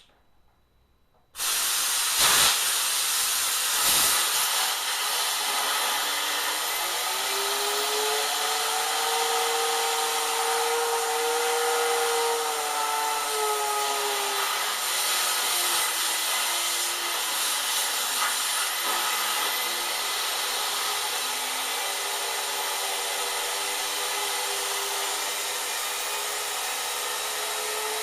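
Compressed air at about 100 psi blasting into a Hoover SteamVac's vacuum-driven water pump, spinning it up: a loud hiss that starts suddenly about a second in. Over it runs the pump's whine, rising and holding, sinking around the middle, then climbing again.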